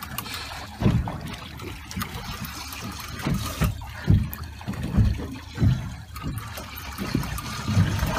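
Sea water lapping and sloshing against a boat's hull, in irregular low slaps over a steady wash.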